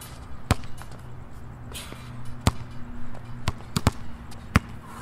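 Basketball bouncing on a hard outdoor court: several sharp bounces at uneven intervals, with a quicker run of them as it is dribbled near the end.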